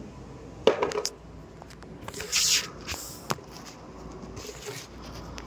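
Handling noises: a quick cluster of knocks about a second in, a short rustling hiss a little past the middle, and one sharp click soon after, as the phone is moved and set down facing the cooktop.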